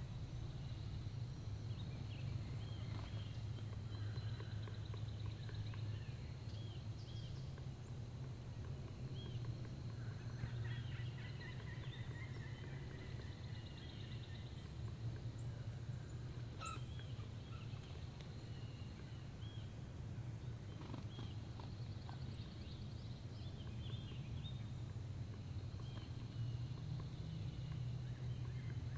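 Wild turkey gobbling amid many short songbird chirps and trills, over a steady low hum.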